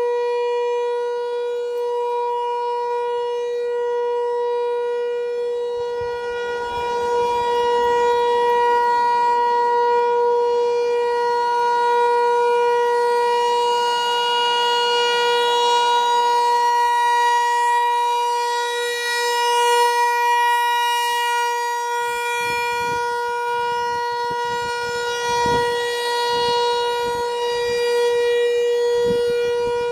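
American Signal T-128 mechanical outdoor warning siren sounding a steady single tone at a constant pitch, rich in overtones, for a storm siren test.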